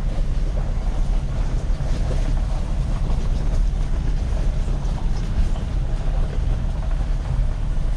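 Vehicle driving along a dirt track: a steady, low engine and tyre rumble.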